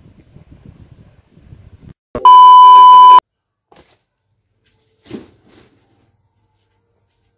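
A loud, steady electronic beep at about 1 kHz, lasting about a second, starting and stopping abruptly about two seconds in. A soft thump follows a few seconds later.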